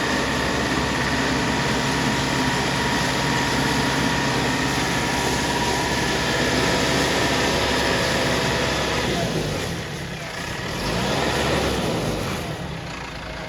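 Heavy diesel engine of earth-moving machinery running steadily, easing off about ten seconds in, picking up again briefly and dropping near the end.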